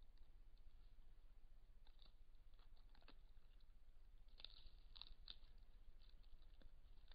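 Near silence over a low steady hum, broken by scattered faint clicks and crackles, with a small cluster of louder ones about four and a half to five seconds in.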